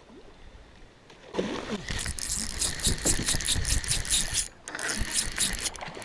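A sudden loud burst about a second in as a smallmouth bass strikes a topwater popper, then a spinning reel clicking rapidly as the hooked fish is fought.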